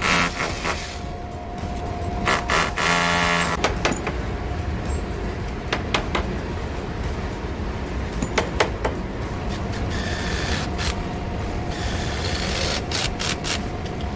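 Steady drone of a large ventilation fan with a faint steady hum, overlaid by scattered clicks and knocks of installation work and a short mechanical whir about three seconds in.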